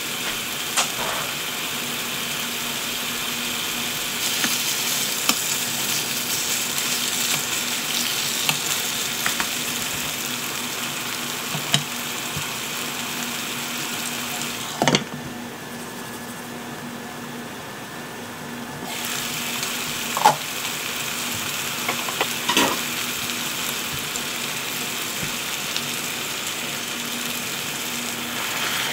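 Chicken tenderloins, potato sticks and carrots sizzling in a frying pan, a steady hiss that dips for a few seconds around the middle. A few sharp clicks sound over it.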